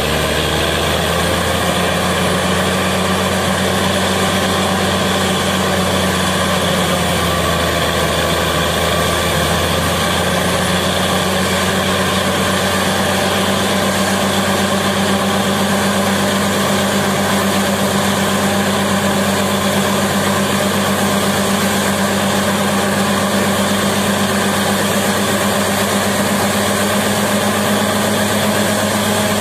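Truck-mounted borewell drilling rig running steadily, its engine and air compressor driving water up out of the fresh bore, which gushes and splashes out around the drill pipe. The engine note holds steady, sagging briefly several seconds in before recovering.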